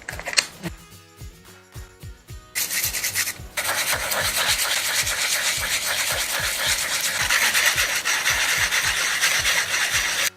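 Bicycle disc-brake pad rubbed on 240-grit sandpaper in circular strokes, a steady scratchy sanding. It starts about two and a half seconds in, pauses briefly, then runs on and stops abruptly near the end. The pad's surface is being cleaned to cure a squealing brake.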